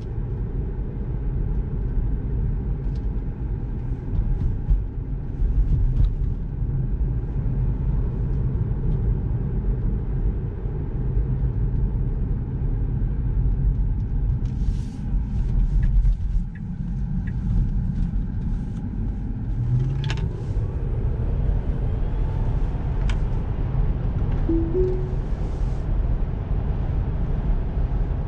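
Road and tyre rumble inside a Tesla Model 3's cabin while driving: a steady low rumble, with a few short hissing sweeps in the middle and a brief two-note tone near the end.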